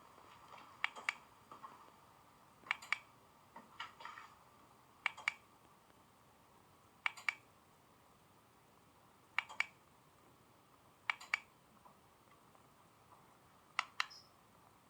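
Sharp clicks in pairs, about eight pairs spaced roughly every two seconds, over a faint steady hum.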